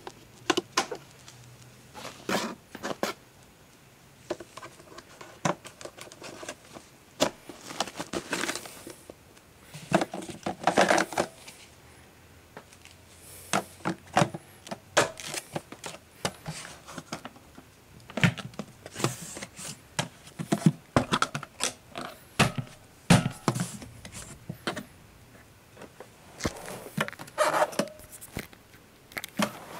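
Irregular handling noises of packaging and the plastic parts of a Miele S6 canister vacuum: scrapes, crinkles and clicks in short bursts with pauses between them.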